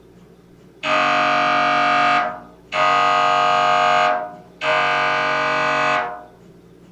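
MRI scanner's gradient coils sounding three loud buzzing tones in a row, each a little over a second long with short gaps between.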